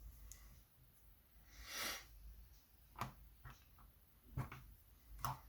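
Faint, sparse metallic clicks and taps as tweezers work loose pins and springs out of a euro lock cylinder, with a soft hiss about two seconds in.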